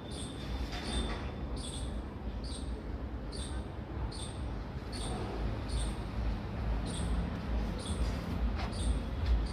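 A small bird chirping over and over, short high notes evenly spaced about every two-thirds of a second, over a steady low rumble.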